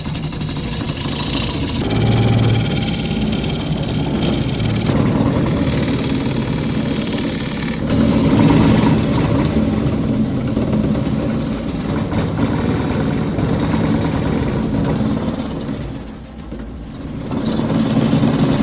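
Wood lathe running while a tool works a spinning mahogany blank, a dense steady machine noise with a low hum. It comes in several segments that change abruptly every few seconds.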